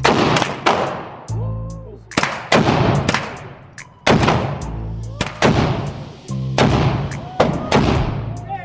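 Gunshots fired one at a time, about ten over several seconds at an uneven pace, each followed by a long echoing tail, over background rap music.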